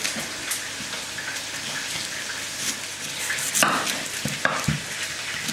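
Pieces of oxtail frying in a pan, a steady sizzle, with a few knife knocks on a wooden cutting board as a leek and an onion are cut.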